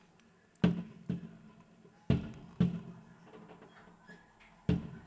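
Fireworks going off in the night sky: five sharp bangs, the first four in two pairs about half a second apart and the last alone near the end, each dying away briefly.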